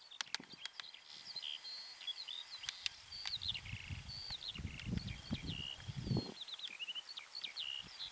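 Several small songbirds singing together, a steady stream of quick chirps, whistles and trills. Low rumbling noise from wind on the microphone comes and goes through the middle.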